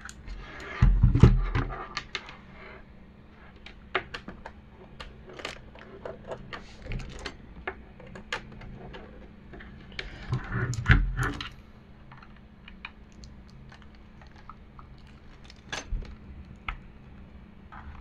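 A USB Type-C cable being plugged into a Fantech Maxfit61 60% mechanical keyboard and the keyboard being handled: two bouts of rustling and knocks, about a second in and again about ten seconds in, with scattered light plastic clicks between and a couple more near the end.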